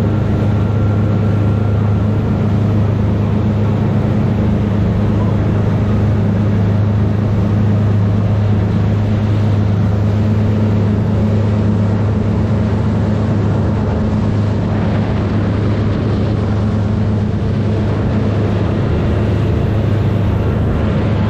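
Fishing boat's engine running steadily, a constant low hum with no change in speed.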